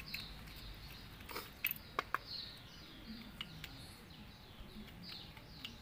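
Birds chirping, short falling calls repeated again and again. A few sharp clicks of small handle-clamp parts being handled cluster about two seconds in, as a loop handle is fitted to a brush cutter shaft.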